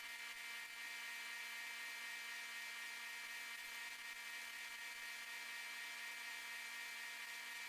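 Faint, steady whine of a lapidary cabbing machine's motor and grinding wheels running.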